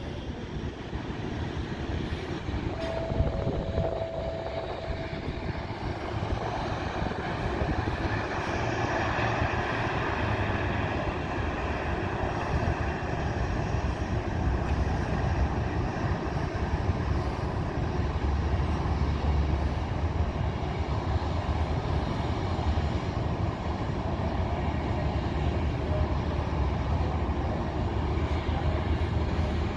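Steady rumble of distant jet engines across an airfield, swelling about eight seconds in and then settling, with wind buffeting the microphone. A brief high steady tone sounds about three seconds in.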